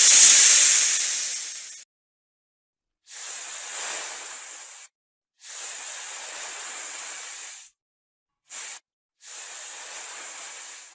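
Snake hissing in a series of separate hisses, each cut off sharply: a loud one fading away over about two seconds, two steady hisses of about two seconds each, a very short one, then another steady hiss.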